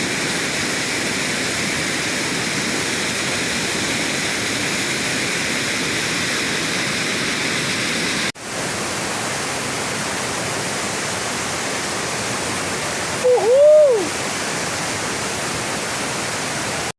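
Waterfall's steady rush of falling water, with a momentary break about eight seconds in. Near the end, a short pitched sound rising then falling stands out above the water for under a second.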